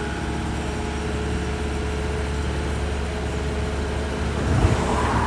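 Heavy diesel engine of construction machinery running steadily with a deep hum, swelling louder about four and a half seconds in.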